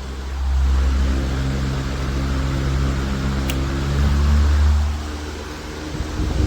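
Simple Deluxe 16-inch electric pedestal fan running: a steady low motor hum with air noise that swells louder twice.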